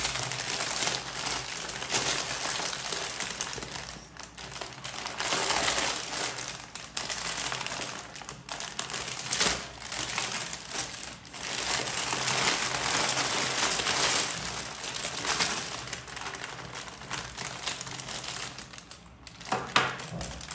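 Clear plastic bag full of Lego pieces being handled and pulled open by hand, crinkling on and off with short lulls.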